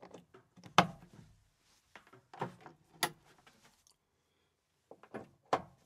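XLR cable connectors being handled and plugged into the back panels of powered studio monitors: a handful of separate soft clicks and knocks with quiet handling between.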